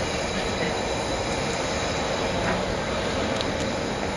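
Freight train running past, a steady noise of wheels rolling on the rails.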